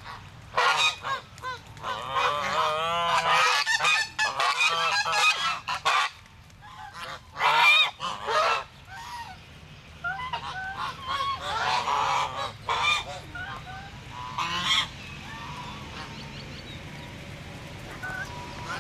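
A flock of domestic geese honking, many calls overlapping in a dense chorus for the first few seconds, then coming in clumps and thinning to scattered honks in the second half.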